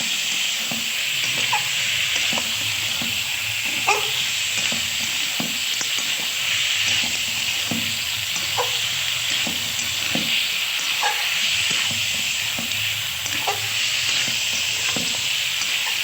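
Mutton curry sizzling steadily in a pot while a spoon stirs it, with short scrapes against the pot every second or two.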